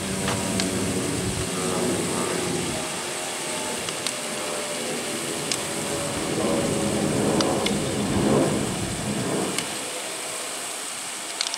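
Steady outdoor rush of wind and fountain water jets, with gusts rumbling on the microphone that drop away briefly twice, and faint voices in the background.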